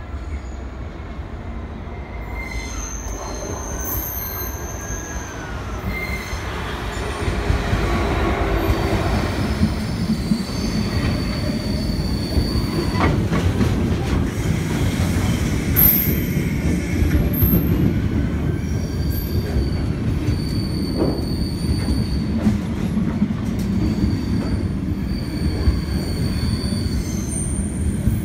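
A Class 66 diesel locomotive's two-stroke V12 engine growing louder over the first several seconds as it trundles in, then a long train of loaded freight wagons rolling past in a steady rumble, with repeated high wheel squeals.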